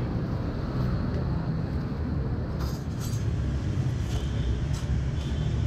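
Steady low rumble of motor traffic going by, with a few light clicks about halfway through and again near the end.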